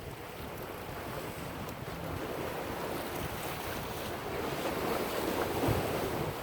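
Ocean waves washing in with wind buffeting the microphone; the wash swells in the second half and eases off near the end.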